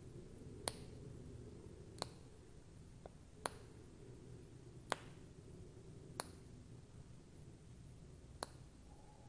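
Faint sharp single clicks, about one every second and a half, as bare stranded copper wire ends are twisted together by hand to join a motor lead to a supply lead; a faint low hum runs underneath.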